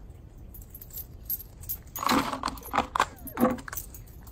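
Clattering and jingling as a dog reaches a plastic shopping basket and takes hold of it, in a run of quick sharp strokes lasting under two seconds around the middle.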